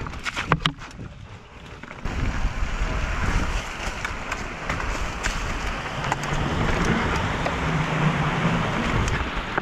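Mountain bike rolling along a dirt trail: a few clicks, then from about two seconds in a steady rumble of tyres and rattle, with wind noise on the chest-mounted microphone.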